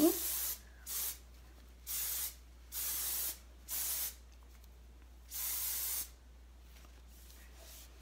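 Schwarzkopf Osis Session texture hairspray sprayed up into lifted hair in six short hissing bursts, the last one a little longer, about six seconds in.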